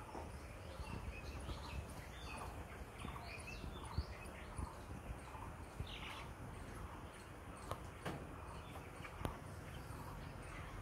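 A flock of 24-day-old broiler chickens peeping and chirping, with many short overlapping calls, over a low steady background, broken by a few sharp clicks.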